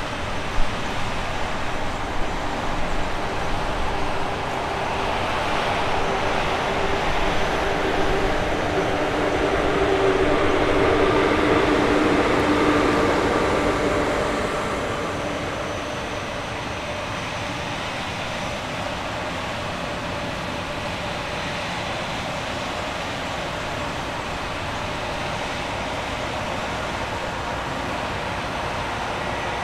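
A train running past on the line. Its sound builds to its loudest about ten to thirteen seconds in, with a few steady tones mixed into the rumble, and then falls back to a steady, even noise.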